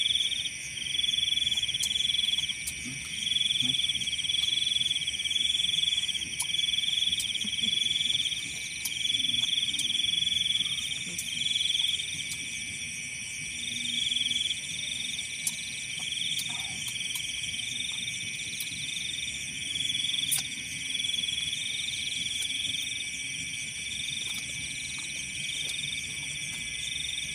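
A night chorus of insects such as crickets: several steady high-pitched trills, one of them coming in pulses about a second long with short gaps.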